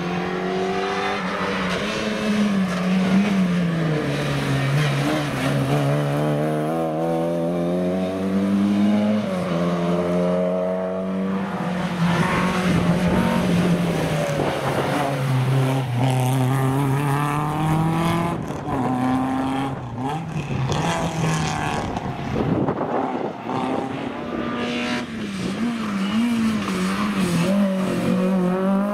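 Historic rally cars' engines revving hard, one car after another, pitch climbing and dropping repeatedly as they shift gears, brake and accelerate out of corners.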